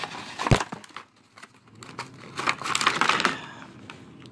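Clear plastic blister packaging of a toy action figure being handled. There is a sharp click about half a second in, then crinkling and clicking of the stiff plastic a couple of seconds later.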